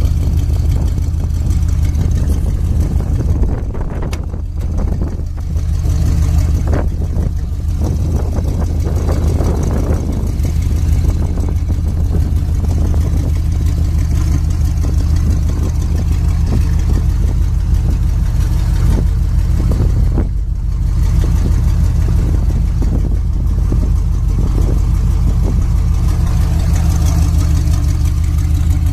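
1963 Chevrolet pickup's engine idling steadily.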